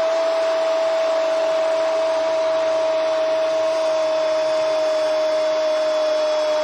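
A football commentator's long drawn-out goal cry, one unbroken note held for several seconds and sinking slightly in pitch, over a cheering stadium crowd.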